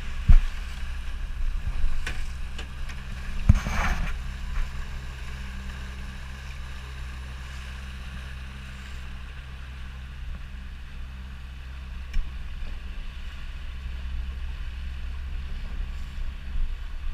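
Small inflatable boat's motor running steadily under way, a low drone with wind and water rushing past. Two sharp thumps, about a second in and again a few seconds later.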